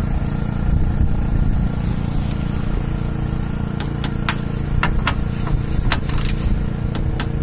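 ETOOLAB TW170F half-inch-drive click torque wrench and its socket working a bolt, set to 35 foot-pounds: a string of sharp clicks and knocks starting about halfway through. A steady engine hum runs underneath.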